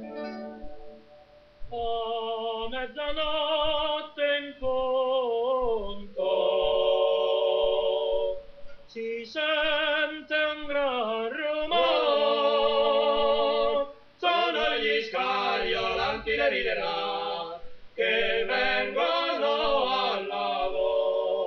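Singing: a sung melody with long held notes and short gaps between phrases.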